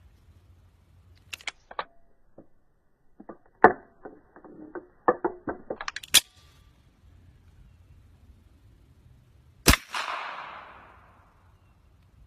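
Sharp metallic clicks and snaps from a Beretta 92 pistol being handled: a few clicks, then a quick run of them. Just before the end comes one loud sharp bang with a long fading tail.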